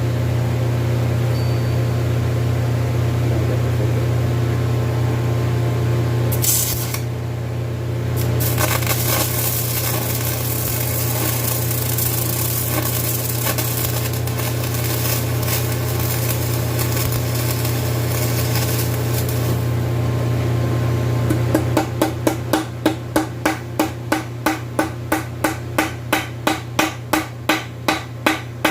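A steady low hum throughout. From about eight seconds to about twenty seconds a stick-welding arc with a hardfacing rod hisses and crackles. From about twenty-two seconds a hammer strikes metal in quick, even blows, about three a second.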